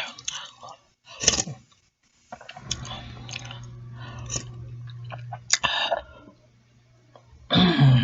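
Close-miked eating sounds: chicken noodle soup being chewed, with wet smacking clicks. A low steady hum runs through the middle, and a louder throaty sound dropping in pitch comes near the end.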